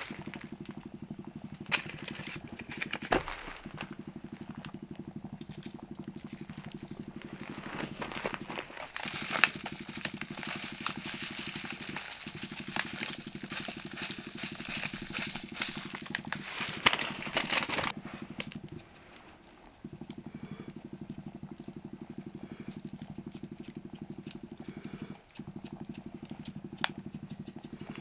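Wood campfire crackling with scattered sharp pops over a steady low hum. There is a stretch of hissing in the middle.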